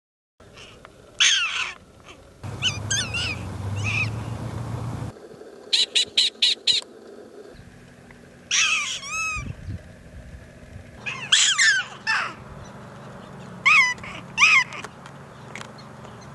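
Prairie dogs calling: sharp, chirping barks, singly and in quick runs of about five, with a distant rumbling background for a few seconds early on; the background changes abruptly several times, as if short recordings were spliced together.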